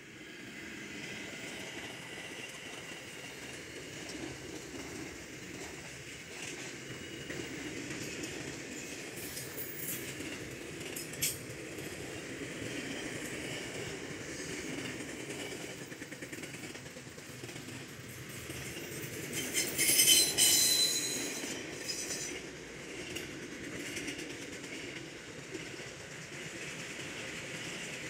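Freight train rolling past close by. The diesel locomotive comes by at the start, then a long string of container and flat wagons follows with a steady rumble and wheel clatter on the rails. About two-thirds of the way through, a short, louder high-pitched wheel screech stands out.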